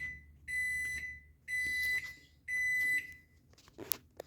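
Microwave oven beeping at the end of its cycle: four long, high beeps about a second apart, then a couple of short clicks near the end.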